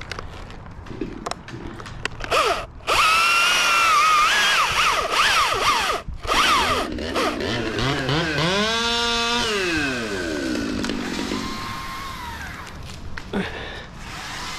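Husqvarna T540i battery chainsaw cutting dead birch, its motor whine wavering and dipping under load. About eight seconds in it revs up and winds back down.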